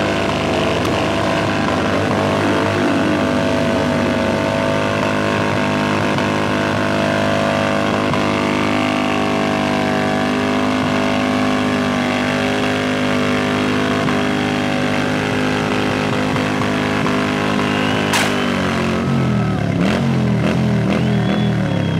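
Stunt motorcycle doing a burnout, its engine held at steady high revs while the rear tyre spins on the pavement. Just after eighteen seconds in comes one sharp bang as the rear tyre blows out, and the engine revs then drop away in steps.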